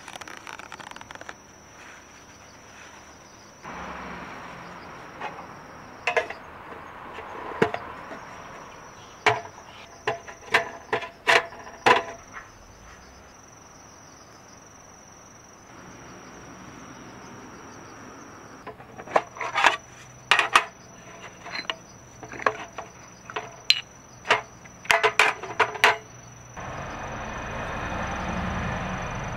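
Insects chirring steadily in one high tone, with two clusters of sharp clicks and taps, about a second apart or faster, over the middle of the stretch. A low rumbling noise sets in near the end.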